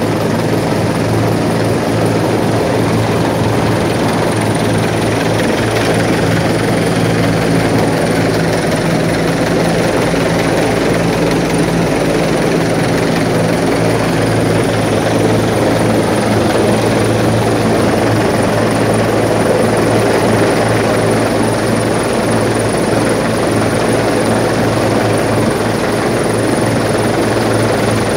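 Rescue helicopter hovering low overhead, its rotor and engines running as a loud, steady drone with a thin high whine above it.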